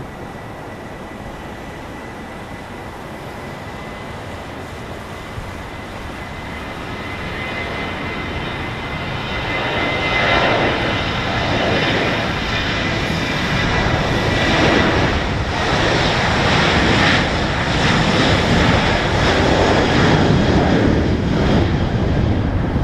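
The twin CFM56-7B turbofan engines of a Boeing 737-900ER spooling up to takeoff thrust as the airliner rolls down the runway. A steady high whine is heard at first, then the jet roar swells over the first ten seconds or so and stays loud, pulsing slightly, as the plane gathers speed.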